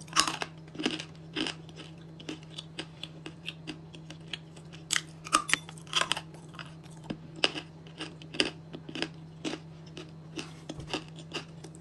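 Crunching and chewing of a piece of dry edible pink Uzbek clay, with an irregular run of sharp, crisp crunches close to the microphone.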